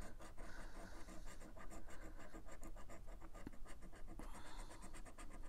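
A plastic scratcher scraping the latex coating off a scratch-off lottery ticket in rapid, continuous strokes.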